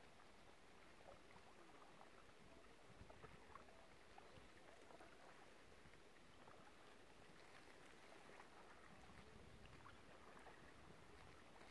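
Near silence: faint lake ambience with soft, scattered small water ticks.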